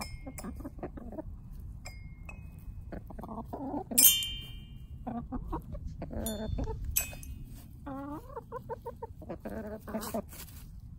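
Hens pecking the metal bars of a toy xylophone, each peck ringing a short bright note, the loudest about four seconds in. Between the notes the hens cluck, with a quick run of repeated clucks about eight seconds in.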